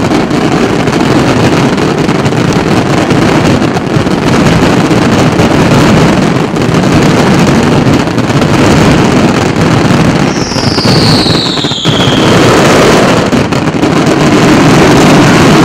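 Fireworks barrage: many aerial shells bursting at once, merging into a loud continuous rumble shot through with crackle. A falling whistle sounds about two-thirds of the way through.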